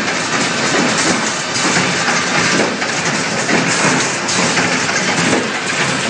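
Automatic three-pin plug insert crimping machine running: a steady, dense mechanical clatter from its pneumatic crimping stations and feed.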